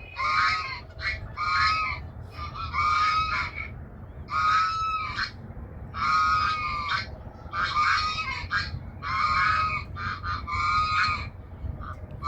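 Geese honking repeatedly on a lake, about nine loud honks roughly one every second and a half.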